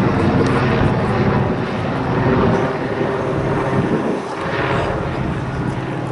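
Police helicopter flying overhead: a steady rotor and engine drone that eases slightly after about halfway.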